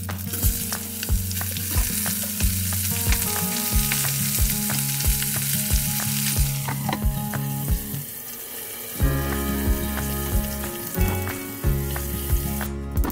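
Pork sizzling as it sears in a frying pan, the sizzle strongest in the first half and fading after about six seconds, over background music with a steady beat.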